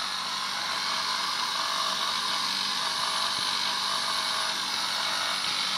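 Recorded power-tool noise played back from a sound CD of household DIY sounds: a steady, unbroken whirring hiss that keeps going without change.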